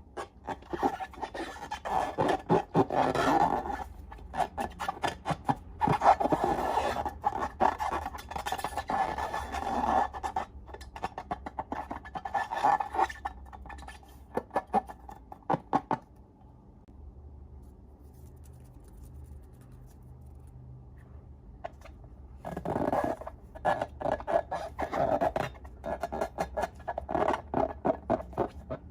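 Close-up crackling, clicking and scraping of slime being worked and mixed, in busy bursts that pause for several seconds past the middle before starting again.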